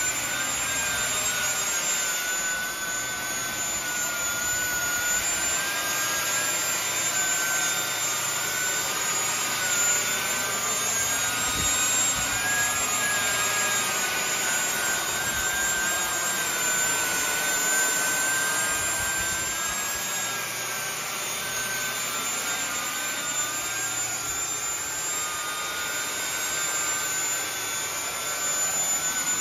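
Two 70 mm electric ducted fans on a 3D-printed RC F-35B model running at hover power: a steady high whine over a rush of air, its pitch wavering slightly as the throttle is worked.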